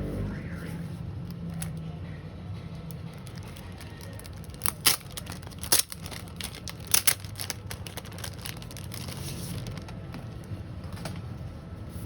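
Packaging being handled: a few sharp crinkling, crackling rustles about five to seven seconds in, over a steady low hum.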